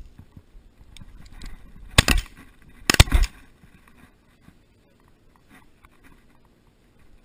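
Two loud shotgun shots about a second apart, fired at a pheasant flushed from a dog's point.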